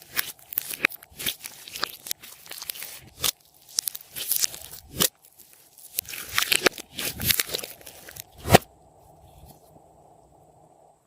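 Slime being stretched and squeezed by hand, giving irregular sticky crackles, pops and clicks, with one loud sharp snap about eight seconds in. It goes quieter near the end.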